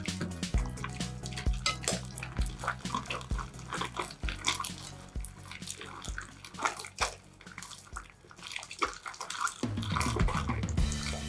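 Wet squelching, popping and crackling of foamy slime being kneaded and pulled by hand, with soft background music with a slow beat that drops away in the middle and comes back near the end.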